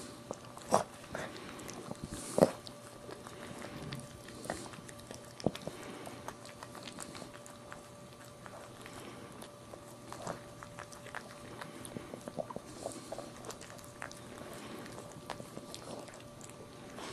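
A dog licking and chewing, with many small wet mouth clicks and two sharper knocks about a second and two and a half seconds in, over a faint steady hum.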